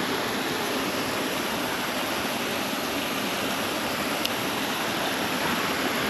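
Mountain stream flowing: a steady, even rush of water.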